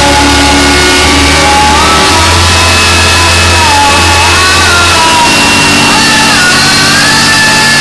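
Very loud amplified electric guitar: sustained droning low notes that change about two seconds in and again about five seconds in, with high notes sliding and bending above them.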